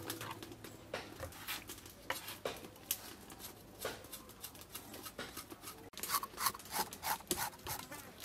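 Kitchen knife scraping the scales off small whole fish on a wooden chopping board: irregular scratchy strokes and taps, coming faster in the last couple of seconds.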